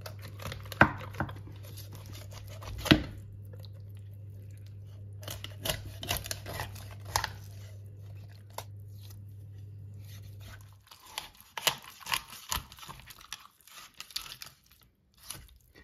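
Knife cutting the backbone out of a raw whole chicken: sharp cracks as the blade goes through rib bones and joints, with tearing of skin and flesh in between. A low steady hum stops about eleven seconds in.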